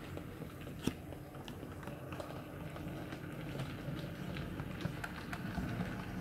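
HO-scale model steam locomotive running along the track: a steady low rumble of its motor and wheels with scattered light clicks at the rail joints, growing louder as it comes closer. One sharper click about a second in.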